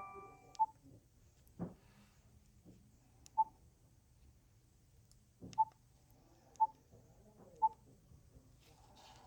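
A BlackBerry Curve 9320 phone giving short single-pitch beeps, six of them at uneven intervals, with a couple of faint knocks between them.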